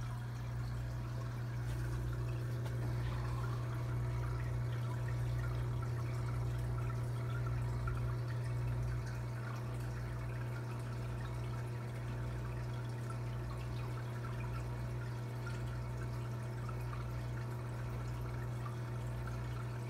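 Aquarium sponge filter bubbling and splashing as air rises up its lift tube, over a steady low hum.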